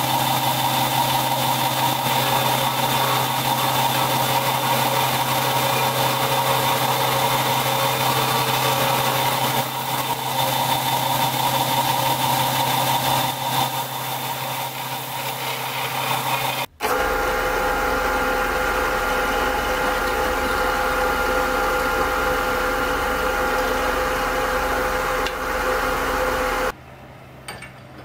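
A 6-by-9-inch belt and disc sander running steadily while a small wooden piece is sanded on its disc. Over halfway through, the sound changes abruptly to a different, deeper steady machine hum, which stops shortly before the end.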